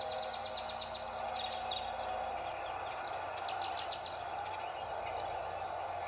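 Birds singing in the dawn chorus, with many quick high chirps and rapid trills overlapping, over a steady background hiss.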